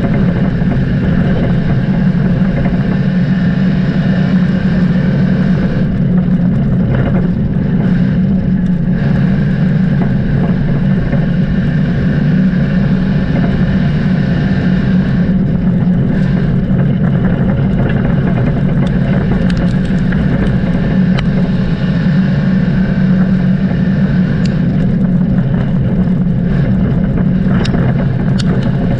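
A vehicle engine running at a near-constant speed: a loud, continuous drone with a steady pitch.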